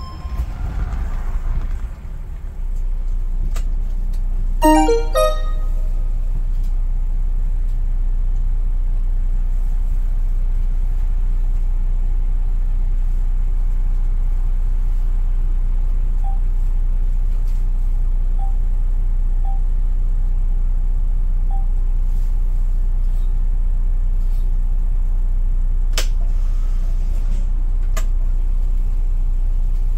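City bus engine idling with a steady low drone while the bus stands at a red light. Music fades out in the first two seconds, a short run of chime-like tones comes about five seconds in, and two sharp clicks sound near the end.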